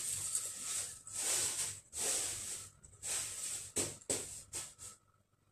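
A nursing pillow being pushed and shaped by hand on a fabric tree skirt, its cover rustling in a run of short swishes that stop about five seconds in.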